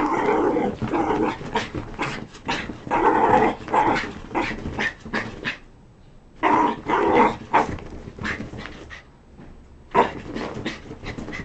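Small dog growling and giving short barks in bursts while spinning after its tail, loudest near the start, about three seconds in and about seven seconds in. Its paws scuffle on the bedding throughout.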